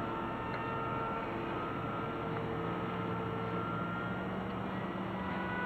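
Distant whine of an RC glider's brushless electric motor in flight over a steady hiss, its tones holding for a second or two and then shifting in pitch.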